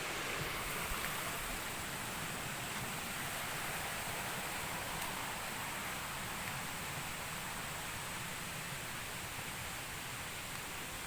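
Steady outdoor ambience: an even rushing noise, with a faint steady high hiss above it.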